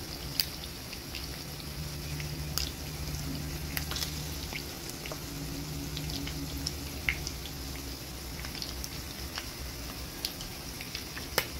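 Fish steaks frying in hot oil in a pan: a steady sizzle with scattered sharp pops and crackles of spitting oil, the loudest just after the start and near the end. A low steady hum runs underneath.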